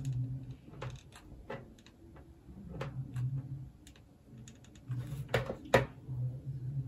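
Scattered small clicks and taps from a hot glue gun being worked by hand while gluing wool hair onto a doll's head, with two louder knocks about five and a half seconds in as the glue gun is set down on the table.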